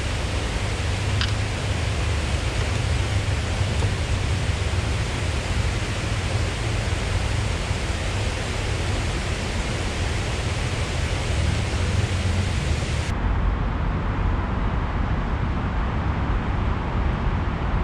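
Steady rushing noise of water pouring over a low dam spillway, with a strong low rumble. About two-thirds of the way through the hiss drops away, leaving a duller steady rumble.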